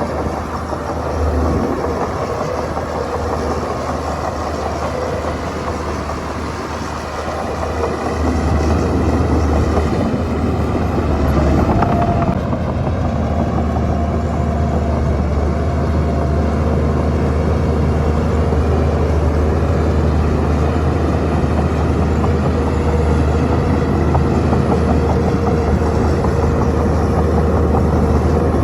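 Shantui bulldozer's diesel engine running as it works, a steady deep drone that gets louder about eight seconds in and holds there.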